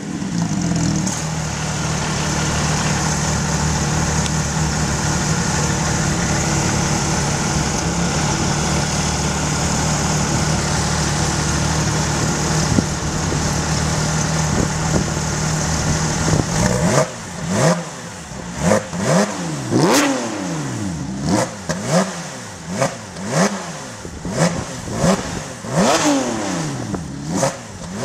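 Porsche 911 GT3 RS 4.0's naturally aspirated flat-six with a Tubi Style exhaust, valve closed, settling from its start-up into a steady idle. About 16 seconds in it is blipped over and over, about a dozen quick revs, each rising and falling in pitch.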